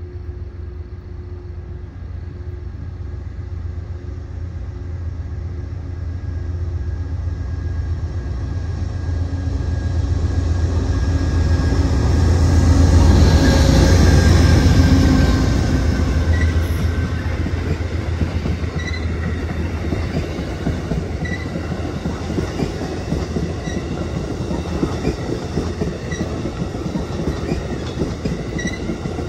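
Amtrak passenger train passing at speed. The locomotive's rumble builds to its loudest about halfway through as the engine goes by. The passenger cars then roll past with a steady wheel rumble and a regular clickety-clack over the rail joints.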